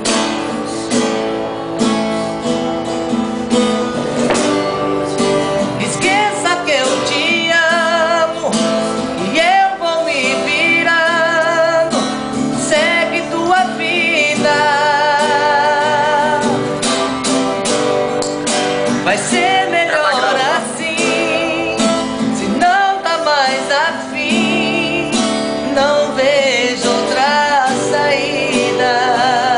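A man singing a Portuguese love song with strong vibrato, accompanied by his own strummed guitar. The guitar plays alone for the first few seconds before the voice comes in.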